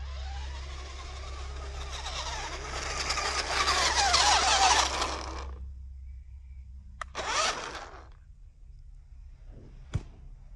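Toy RC rock crawler's electric motor and gearbox whining under throttle, the pitch wavering and rising, then cutting off sharply about five and a half seconds in. A second short burst of the motor follows about a second later, and there is a single sharp click near the end.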